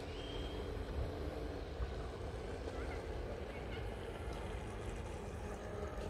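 Radio-controlled model boats running on a pond, a faint steady motor hum under low wind rumble on the microphone.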